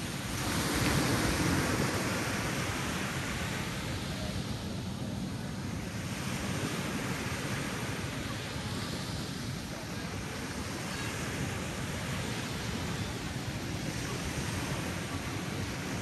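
Small waves breaking and washing up a sandy beach in a steady rush of surf, with one louder break about a second in and gentler swells after.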